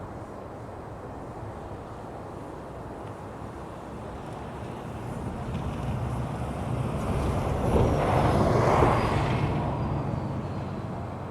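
A vehicle passes by over a steady low outdoor rumble: its noise swells, peaks about eight to nine seconds in, then fades, with a faint high tone sliding down as it goes past.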